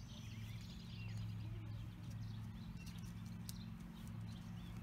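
Faint birds chirping now and then over a steady low hum of outdoor background noise.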